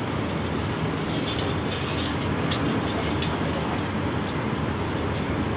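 A steady low mechanical hum over a wash of noise, with a few faint light metallic clinks from a thin light-gauge steel channel being handled.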